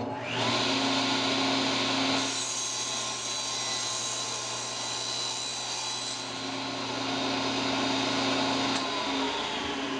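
A table saw is switched on and runs with a steady whine while its blade cuts through plywood, and it sounds heavier while the blade is in the wood. Near the end its pitch starts to fall as the motor winds down.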